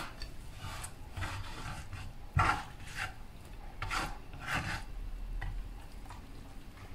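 Hands working a raw squid and its diced onion and tomato filling on a wooden cutting board: a series of short rubbing and scraping noises, with a sharper knock about two and a half seconds in.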